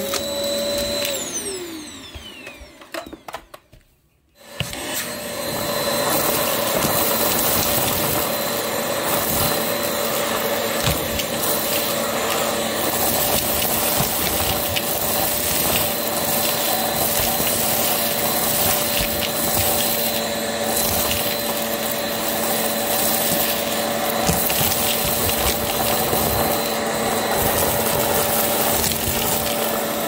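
Hoover vacuum cleaner motor switched off and winding down, its whine falling in pitch and fading over the first few seconds, then switched back on about four seconds in and running steadily with a constant whine.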